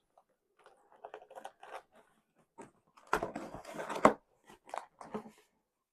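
Cardboard LEGO box being opened by hand, its perforated thumb tabs pushed in and the flaps worked loose: irregular cardboard crunching and crackling, with a sharp snap about four seconds in.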